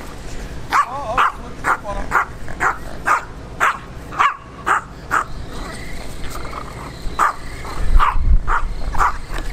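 Small dog barking in short, sharp yips, about two a second, with a pause of a second or so in the middle, at a remote-control toy car it is chasing.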